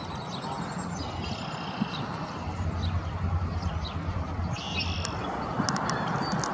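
Steady outdoor background noise with small birds calling in the background: short high notes about a second in and again near five seconds, then a run of quick high ticks near the end.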